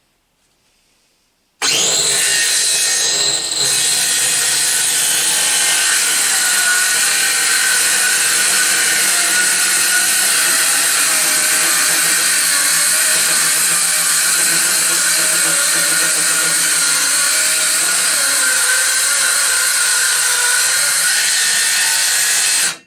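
Parkside PHKSA 20-LI A2 20 V cordless circular saw starting up and cutting through a wooden board, a steady whine over the rasp of the blade in the wood for about twenty seconds. It starts abruptly a second and a half in and stops abruptly near the end.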